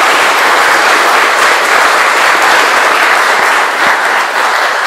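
Audience applauding: a dense, steady crowd of hand claps that thins slightly near the end.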